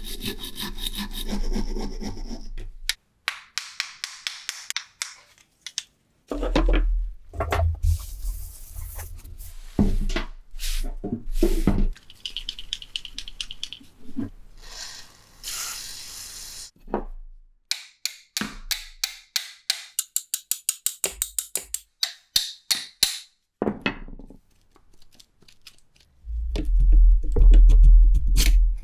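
A run of hand-restoration sounds on a rusted steel bayonet. It opens with a brass wire brush scrubbing rust for the first couple of seconds, then scattered clicks and knocks. Around the middle an aerosol can of WD-40 is handled and gives a hiss of spray, and near the end comes a loud low grinding rub as the rusted bayonet is worked by hand against the table.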